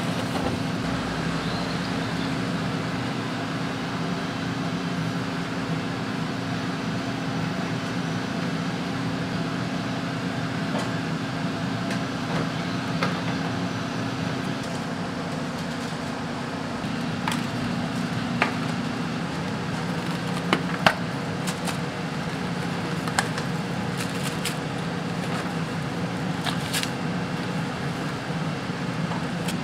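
Steady mechanical hum with a low drone, joined in the second half by a few short sharp clicks or taps.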